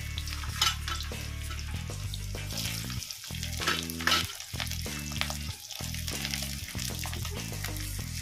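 Diced carrot and capsicum sizzling as they fry in mustard oil in a kadhai, with a spatula stirring and scraping against the pan in a few sharp strokes. Background music runs underneath.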